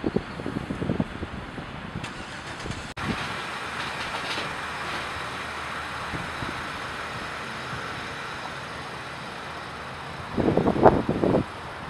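Steady road noise of a moving vehicle, with clusters of loud low rumbles at the start and again near the end.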